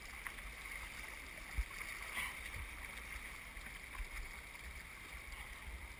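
Steady rush of river water moving around a canoe in the current, with a few faint low thumps, the clearest about a second and a half in.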